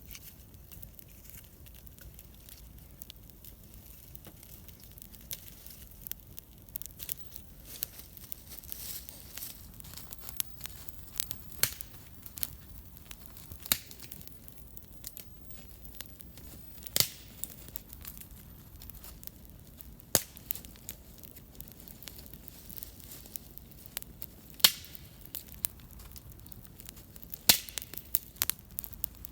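Wood campfire crackling, with irregular sharp pops, a few of them louder than the rest.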